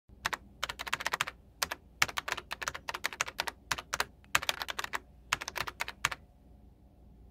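Computer keyboard typing sound effect: quick runs of key clicks in short bursts, stopping about six seconds in, as lettering appears on screen one character at a time.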